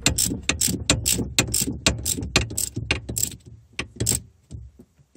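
Socket ratchet wrench clicking rapidly, about five clicks a second, as it is swung back and forth to run down the steering intermediate shaft's yoke bolt. The clicking stops about four seconds in.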